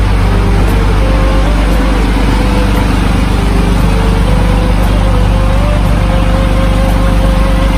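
An engine running steadily at constant speed, a loud, even low drone that does not change.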